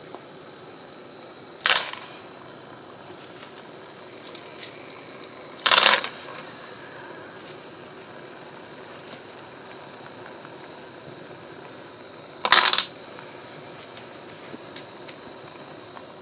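Steel bolts and fasteners dropped into a stainless steel pot of hot manganese phosphate parkerizing solution: three sharp metallic clinks, the second about four seconds after the first and the third about seven seconds later, with a couple of faint ticks between. A steady low hiss runs underneath.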